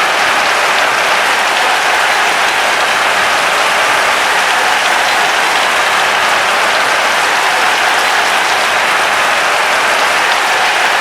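Large crowd applauding, dense and steady clapping without a break.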